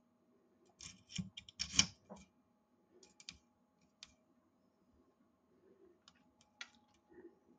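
Sharp metal clicks and clacks of Colt 1911 pistol parts being handled and fitted during reassembly. A dense cluster comes about a second in, with scattered single clicks after it.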